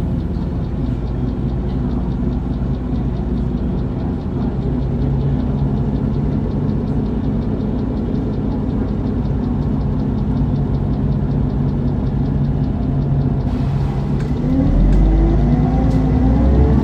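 Mercedes-Benz Citaro CNG city bus's gas engine running steadily, heard from on board. About 14 seconds in, the engine note rises in pitch and gets louder as the bus accelerates through its ZF Ecomat automatic gearbox.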